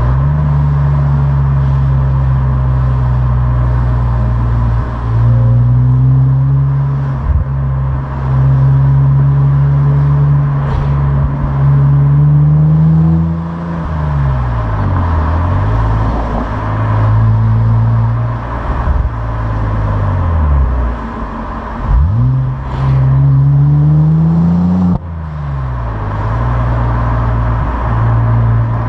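Opel Insignia OPC's turbocharged 2.8-litre V6 on its stock exhaust, driven under load. The engine note climbs slowly in pitch and falls away several times, with a quick rise and a sudden drop about 25 seconds in.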